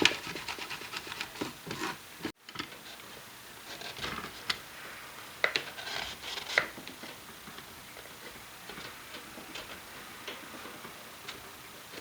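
Cloth wiping and rubbing over a small guitar amp's speaker grill and cabinet, with scattered light clicks and taps as it is handled. The sound drops out abruptly about two seconds in, then the rubbing and clicks carry on.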